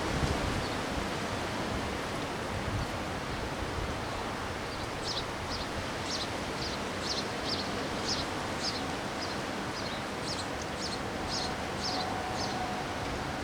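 Steady wind with rustling leaves. From about a third of the way in, a small bird chirps over and over, short high chirps about two a second, stopping shortly before the end.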